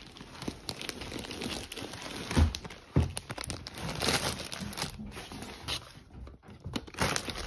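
Plastic bags and plastic packaging crinkling and rustling as they are handled, with two dull thumps near the middle.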